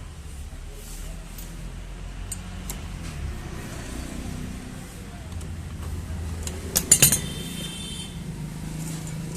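Metal tools and parts clinking on a scooter's clutch pulley assembly as it is taken apart: a few light clicks, then a loud metallic clank about seven seconds in that rings briefly. A low steady rumble of traffic runs underneath.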